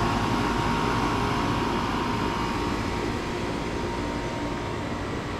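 Outdoor central air conditioner condensers running: a steady hum of compressor and condenser fan. A set of whining tones fades over the first couple of seconds, and the whole hum gets slightly quieter.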